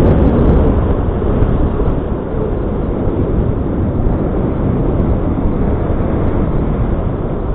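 Strong wind buffeting the microphone, a loud rumble that eases a little about two seconds in.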